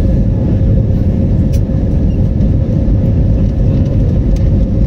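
Jet airliner cabin noise heard from a window seat shortly after take-off: a loud, steady engine and airflow rumble with a steady hum-like tone running through it.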